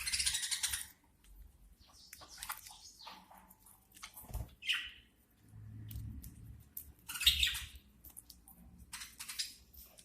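Budgerigars chirping: short, separate chirps and squeaks every second or two.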